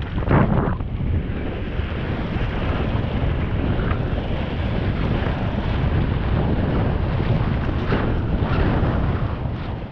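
Wind rushing over a helmet-mounted GoPro's microphone while a mountain bike rolls fast down a dirt singletrack, with the steady rumble of the tyres and the bike's rattle. There is a brief louder clatter about half a second in as the bike crosses a patch of stones.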